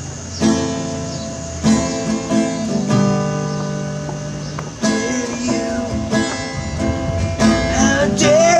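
Small acoustic guitar strummed in slow chords, each struck every second or so and left to ring.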